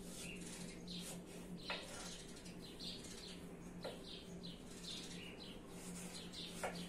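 A knife chopping apple on a wooden cutting board, three sharp taps a couple of seconds apart, over steady small-bird chirping and a low steady hum.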